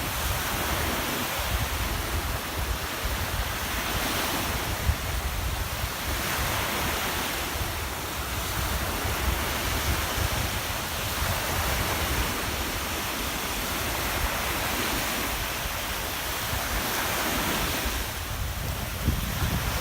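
Black Sea waves breaking and washing up the beach, the surf noise rising and falling every few seconds, with wind buffeting the microphone in a low rumble.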